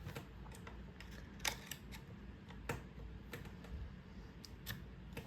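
A dozen or so light clicks and taps at uneven intervals, over a faint low hum: hands handling a laptop, its keys or case.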